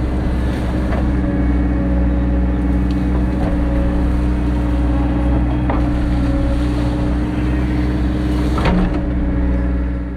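Caterpillar backhoe loader's diesel engine running steadily under load, with a few short clicks or knocks from the machine's work.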